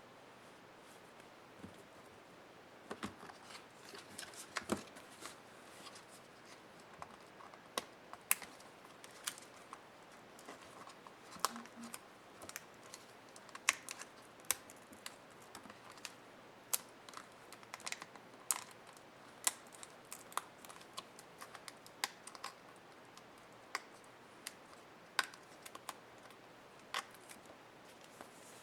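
Irregular sharp clicks and taps, about one or two a second, as small plastic and metal laptop parts are handled by hand during disassembly.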